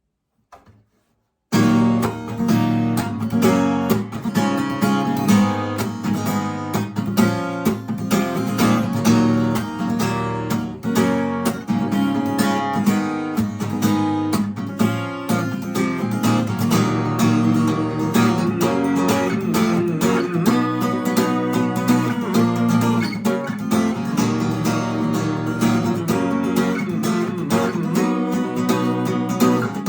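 After about a second and a half of silence, an acoustic guitar starts strumming chords in a steady, driving rhythm: an instrumental introduction with no singing.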